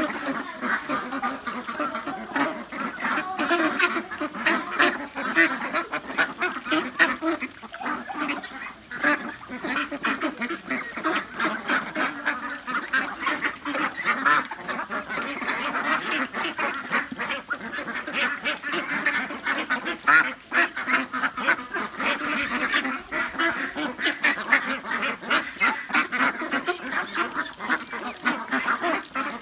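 A flock of young ducks, about 40 days old, quacking and chattering continuously as they feed, many birds calling over one another, with many quick clicks throughout.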